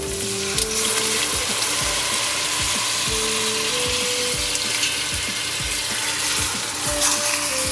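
Chopped onion and garlic sizzling in melted butter in a steel pot as chopped tomatoes are added and stirred in. Soft background music with a slow melody of held notes plays over the sizzle.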